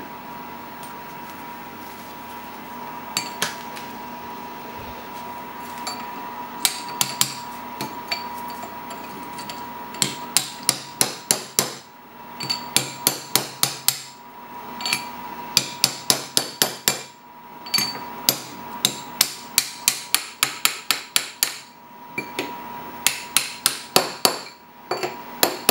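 A hammer tapping a driver tube to seat the upper bearings on a Gorton 9J milling machine spindle shaft. A few single metallic taps come first, then from about ten seconds in there are quick runs of light taps, about three or four a second, with short pauses between them.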